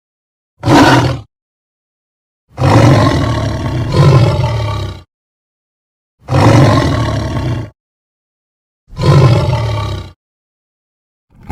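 Tiger roars from an animated film's sound effects, played one after another with silence between: a short roar, a long two-part roar, two more roars, and the start of another at the very end.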